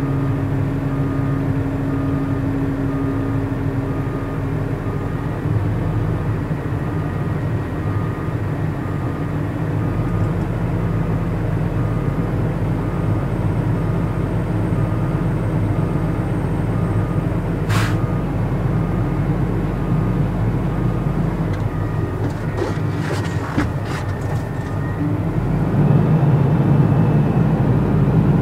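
Truck engine running, heard from inside the cab. A faint beeping repeats about one and a half times a second for the first part, with a sharp click partway through and a few clicks later. The engine gets louder near the end.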